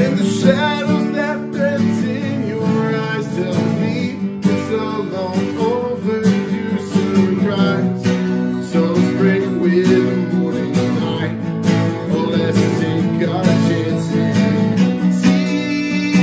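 Two acoustic guitars strummed together, playing a song's chord progression with no pause.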